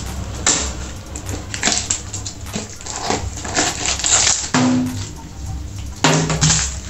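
Plastic and paper packaging crinkling and rustling in a series of irregular crackles as a parcel is unwrapped by hand.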